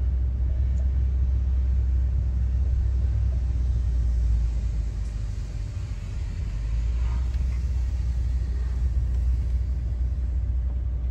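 Low, steady rumble of a car driving slowly, heard from inside the cabin, easing off for a couple of seconds around the middle.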